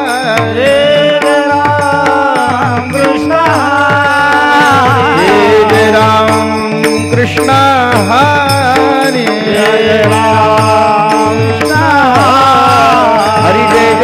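Male devotional kirtan singing: one voice drawing out long, ornamented melodic phrases over a steady drone, kept in time by small hand cymbals (taal) and a regular drum beat.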